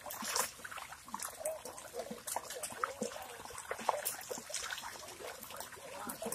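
Wet mud and shallow water squelching and splashing in many short, irregular bursts as hands and feet work through a drained pond bed. Faint short calls sound in the background.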